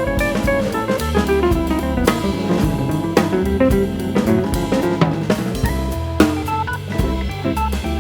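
Background music: an instrumental jazz-style track with a drum kit playing a steady beat under a bass line and melody.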